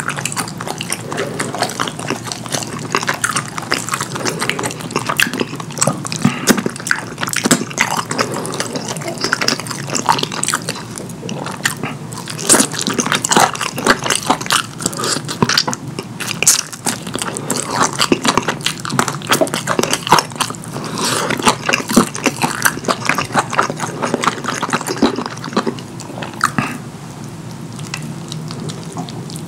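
Close-miked wet, sticky chewing of saucy curry: dense, irregular mouth clicks and smacks, easing off somewhat near the end.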